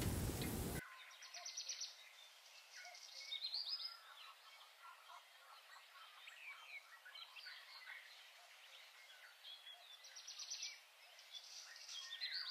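Hot oil in an iron kadai over a wood fire sizzling and crackling, cut off abruptly under a second in. Songbirds chirping after that, with rising whistles and two quick rattling trills, one near the start and one near the end.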